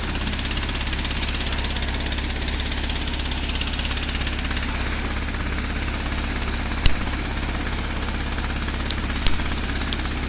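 Dongfeng engine driving a sand-suction pump, running steadily with a rapid, even pulsing. A sharp knock about seven seconds in and a smaller one near the end.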